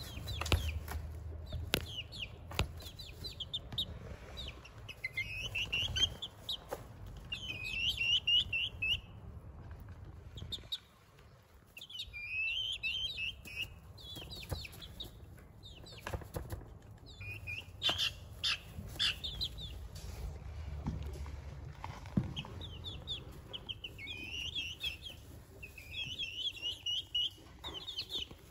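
Young Lemon Millefleur Sablepoot bantam chicks cheeping in runs of short, high peeps that come and go, with scattered sharp taps between them.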